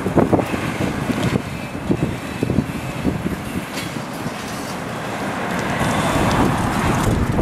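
Wind buffeting the microphone over a low, uneven vehicle rumble.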